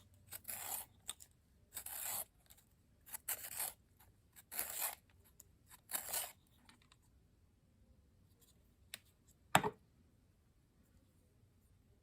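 Staedtler handheld pencil sharpener's blade shaving a new Dixon Ticonderoga graphite pencil as it is twisted: five scraping turns about a second and a half apart, then the sharpening stops. A single sharp click comes near the end.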